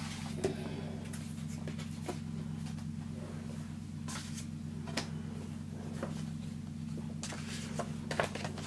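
Paper cards and envelopes handled on a craft table: scattered rustles and light taps over a steady low hum, with the busiest handling near the end.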